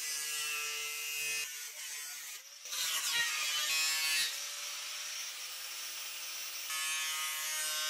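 DeWalt angle grinder cutting through the thin sheet-steel wall of an oil drum, a steady high whining grind. It drops out briefly about two and a half seconds in, then resumes.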